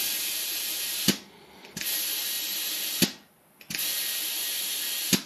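Compressed air hissing through an Astro 3018 digital tire inflator into a small ATC tire in three bursts of about a second each. Each burst stops sharply with a click as the lever is let go. The tire is being topped up to about 10 PSI.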